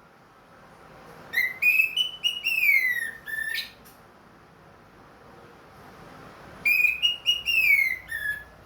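Orange-headed thrush (anis merah) singing, in full song again after its molt: two short phrases of clear whistled notes, each ending in falling glides, about five seconds apart.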